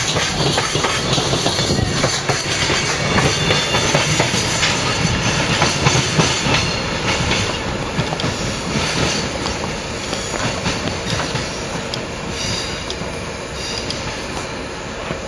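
Freight train rolling past, its wheels clattering over the rail joints in a steady run of clicks, growing gradually quieter over the last few seconds.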